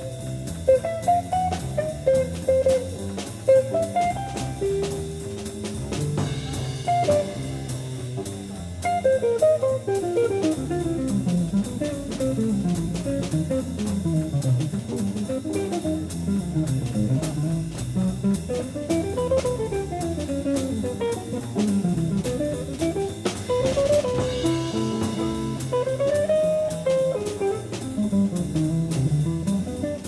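Live jazz combo: an archtop electric guitar plays a solo of quick single-note runs rising and falling, over walking double bass and drum kit.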